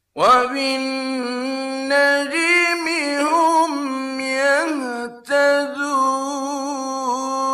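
A male reciter chanting the Quran in melodic tajweed style, drawing out long, ornamented notes that slide and waver in pitch. He breaks off briefly about five seconds in, then takes up a long held note again.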